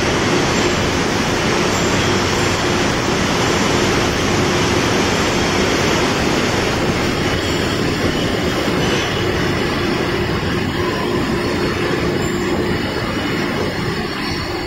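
Steady, loud machinery noise on a glass bottle factory floor, from conveyors and plant equipment, with a steady hum that stops about three-quarters of the way through.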